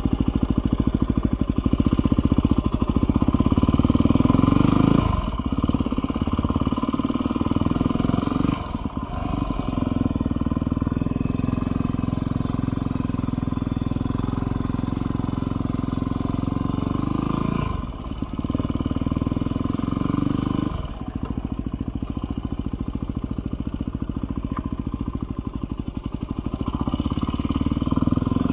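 Yamaha WR250R's 250 cc single-cylinder four-stroke engine running under throttle as the bike pulls away and accelerates, its note dropping briefly about four times as the throttle is closed for gear changes and braking.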